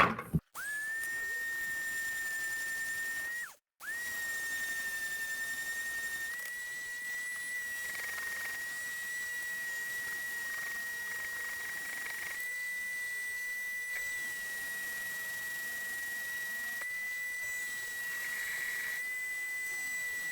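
Small electric sander's motor whining at a steady high pitch as it sands raised writing off a plastic Nerf blaster shell, with faint scraping at times. It spins up at the start, cuts out briefly about three and a half seconds in, then starts again.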